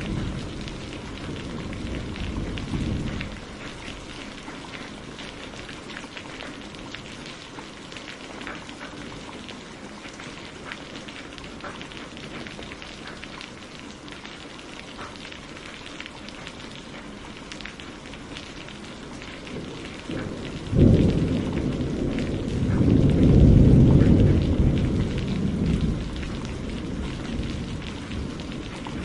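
Steady rain with the patter of individual drops, and thunder: a low rumble dying away in the first few seconds, then a sudden clap about 21 seconds in followed by a longer low rumble that fades out over several seconds.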